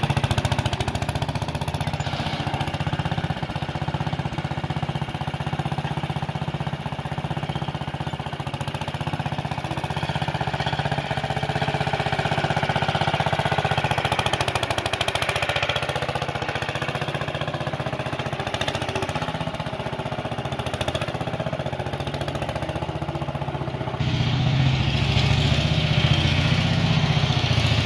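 Small Howard garden tractor's engine running steadily as the tractor is driven along, getting louder about 24 seconds in.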